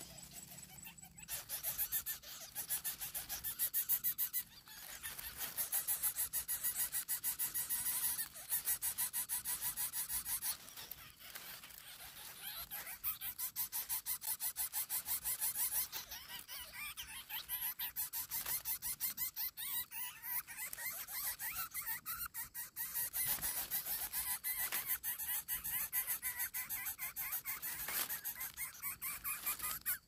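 Lesser coucal nestlings in the nest giving rapid, buzzy rasping begging calls in long bouts with short breaks, as an adult brings food.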